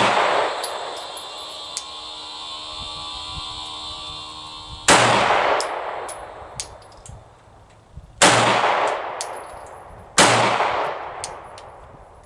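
Glock 19X 9mm pistol fired three single shots, spaced a few seconds apart, each with a long echoing tail. Between the shots there are light metallic clinks and a faint ringing.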